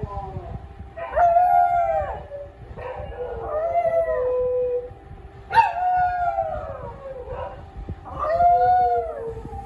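Small dog howling: a string of drawn-out howls, each one to two seconds long and arching up and then down in pitch, with short pauses between them.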